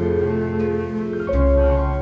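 Instrumental background music of slow held notes over a deep bass, with the chord changing about a second in.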